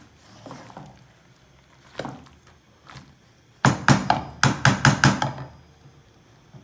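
Wooden spatula stirring sliced gourd in a metal pan, with soft scraping at first, then a quick run of about eight loud knocks of the spatula against the pan a little past halfway.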